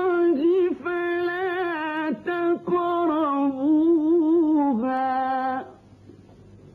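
A man's voice reciting the Quran in the melodic tajweed style, holding long, wavering, ornamented notes. The voice stops about five and a half seconds in, leaving a faint hum.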